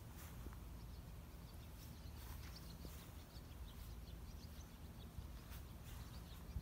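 Faint backyard ambience: a steady low rumble with many scattered, short, distant bird chirps, most of them in the middle stretch.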